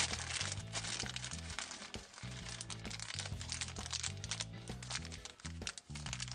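Background music with a repeating bass line, over the crinkling and crackling of plastic packaging being handled.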